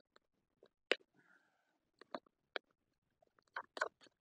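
Spatula tapping and scraping against a small metal pan while stirring egg fried rice over a campfire: a few short, sharp clicks spaced out, then a quick cluster near the end.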